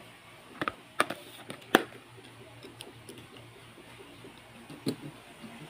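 Light clicks and taps of small pistol parts and a precision screwdriver being handled on a tabletop: three sharper clicks in the first two seconds, then a few faint ticks.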